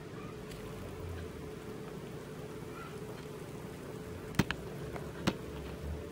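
Thick blended cheesecake mixture pouring into a plastic gelatin mold, quiet under a steady low hum, with two sharp clicks about a second apart in the second half.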